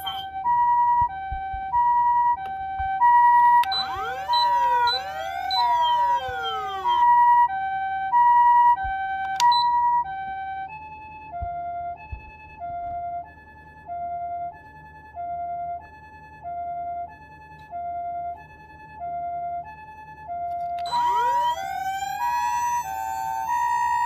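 Osaka Siren MK-D1 electronic siren amplifier sounding the Japanese ambulance two-tone siren, high and low tones alternating about once a second. A few seconds in, sweeping tones rise and fall over it. About halfway through, the two tones shift lower and become quieter. Near the end a rising wail climbs in over them and the siren grows loud again.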